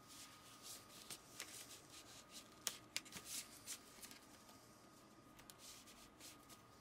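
Faint rustling and light clicks of paper and packaging being handled, with the sharpest clicks a little under three seconds in, over a faint steady high-pitched tone.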